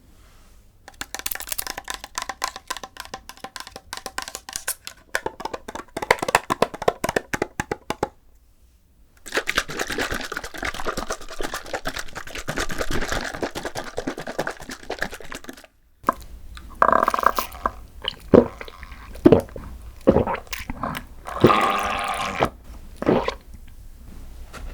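Close-miked chewing of green tea desserts, with crisp, crunchy crackle, in three stretches broken by short pauses about 8 and 16 seconds in. The last stretch is slower, separate bites and mouth clicks.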